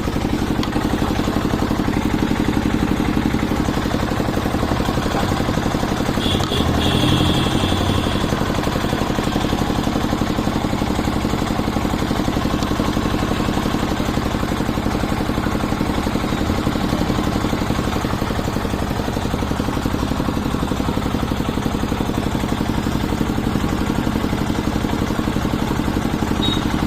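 Usha hand-cranked single-cylinder diesel engine running steadily with a fast, even firing beat, briefly louder about a quarter of the way in.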